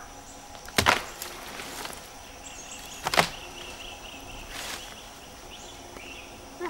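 Forest ambience with a steady high insect drone and a rapid chirping call, broken by two short, loud bursts of noise about two seconds apart and a fainter one after.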